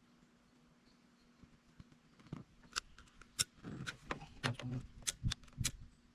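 A run of sharp clicks and light clatter from small tools and hardware being handled, starting about two seconds in.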